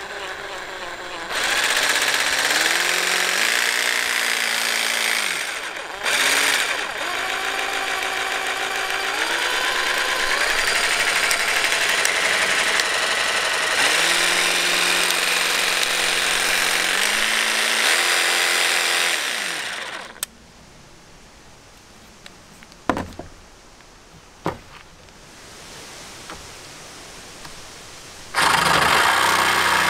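NAC 20 V cordless jigsaw running free with the blade out of the wood, its motor pitch stepping up and down as the speed changes, stopping briefly once and then again about two-thirds through. After a quieter stretch with a couple of sharp knocks, it starts loudly again near the end, cutting pallet wood.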